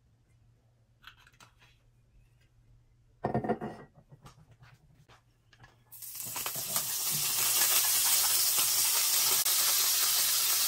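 Chopped vegetables hitting hot oil in a frying pan and sizzling, a steady hiss that starts suddenly about six seconds in. A short knock sounds about three seconds in.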